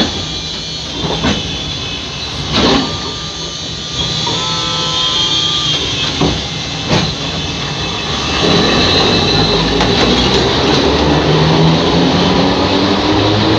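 Alexandria tram cars rolling past at close range. Several sharp knocks come in the first seven seconds, a thin whine sounds briefly around four to six seconds in, and from about eight seconds on there is a louder steady rumble.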